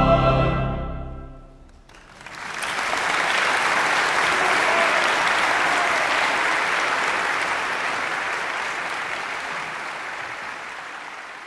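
Final held chord of pipe organ and choir, cut off and dying away over about a second and a half, then audience applause that starts about two seconds in and slowly fades.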